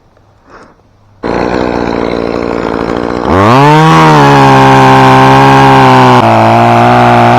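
Two-stroke chainsaw. About a second in, a loud rough running sound starts; near three seconds the engine revs up to full throttle and holds there, dropping slightly in pitch about six seconds in.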